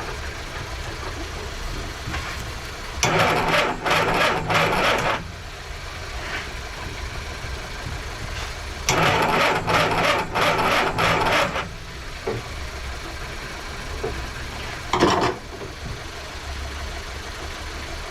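Mini's engine being cranked on the starter in two attempts of about two to three seconds each, without firing, then one brief blip near the end; the engine will not start.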